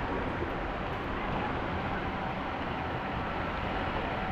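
Steady rushing noise of muddy floodwater running over a road, even and unbroken.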